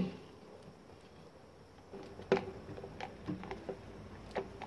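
Small plastic clicks and taps as the hair dryer's handle housing and mains cord are handled during reassembly. After a quiet start there is one sharper click about halfway through, followed by a few lighter taps.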